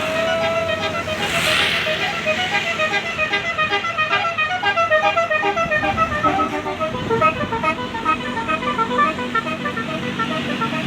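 Tourist bus's basuri-type telolet horn playing a melody as a fast run of short notes stepping up and down, over the rumble of the bus.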